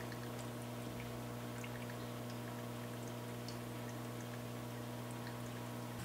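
Water trickling and dripping faintly in a paludarium, over a steady low hum.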